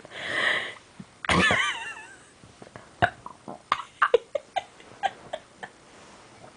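A person belching: a short hoarse burst at the start, then about a second in a loud, long burp with a wavering pitch. A run of small irregular clicks and pops follows.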